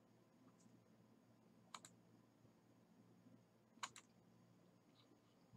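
Two faint computer mouse clicks about two seconds apart, over near-silent room tone.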